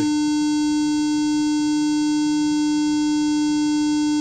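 Steady 300 Hz square-wave test tone from a loudspeaker, coming from a signal generator through a high-pass filter and a stereo amplifier. As the filter's corner frequency is turned back, the tone does not sound any different, even though the waveform's shape changes.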